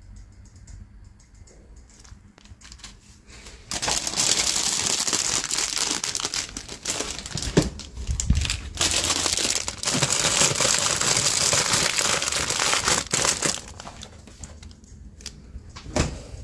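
Plastic packaging rustling and crinkling close by, starting suddenly about four seconds in and stopping a few seconds before the end, with a sharp knock near the end.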